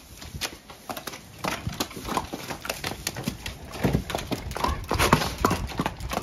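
Horse hooves clopping on a wet yard, an irregular run of knocks that grows busier and louder in the second half.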